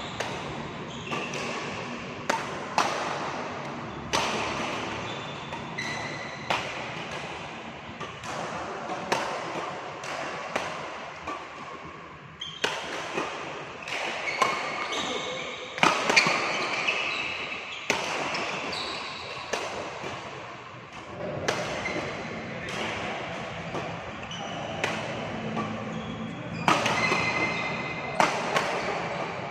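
Badminton rally: rackets smacking the shuttlecock about once a second at an uneven pace, each hit ringing in a large hall, with brief squeaks of shoes on the court floor between hits.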